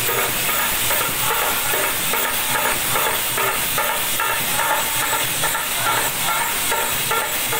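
Devotional bhajan music: large brass hand cymbals clashing in a steady rhythm, their ringing wash filling the sound. Under them are a two-headed barrel drum, a harmonium and men's voices.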